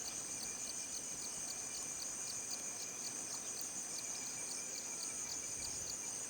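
Rainforest insect chorus: a steady high-pitched drone with a regular chirping about three times a second over it.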